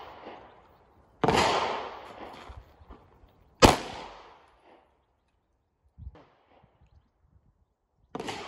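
Two pistol shots about two and a half seconds apart, the second sharper and louder, each trailing off in echo. A faint knock follows a couple of seconds later.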